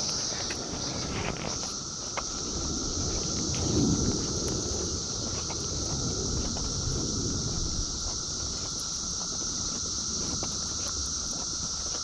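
Dense chorus of cicadas: a steady high-pitched drone with a lower steady hum beneath it. A low rumble on the microphone runs underneath, loudest about four seconds in.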